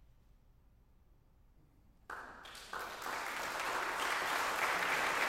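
Audience applause breaking out suddenly about two seconds in after a brief hush, growing quickly and then holding steady.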